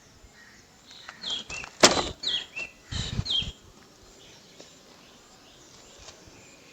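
Bird chirping in short falling notes, three times about a second apart, with a sharp click about two seconds in.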